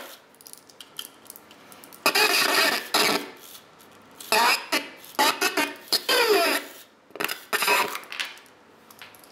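A hacked Furby toy's electronic voice, distorted through a grafted-on voice transformer, chattering in several short bursts with pauses between.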